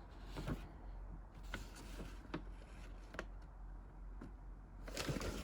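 Light clicks from plastic model kit parts being handled, with a short crinkle of a plastic parts bag near the end.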